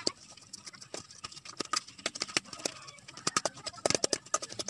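Metal spoon clinking and scraping against a metal bowl as boiled banana heart pieces are stirred: quick, irregular clicks, several a second.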